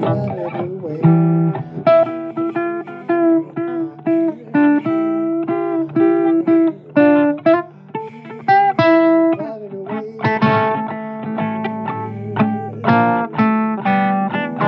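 Instrumental break in a blues song: a guitar plays a line of plucked single notes, some short and some held, over a sustained backing.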